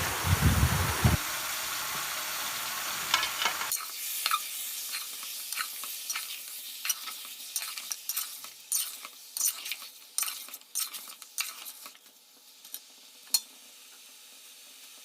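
Chicken pieces sizzling in hot oil with onions in a pan on high flame, stirred with a spoon. From about four seconds in come many short scrapes against the pan.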